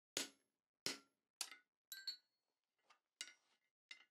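Hand hammer blows on a slot punch being driven through hot 1/2-inch round steel bar: about seven strikes, roughly every half second, each a sharp clink with a short metallic ring, one near three seconds in fainter.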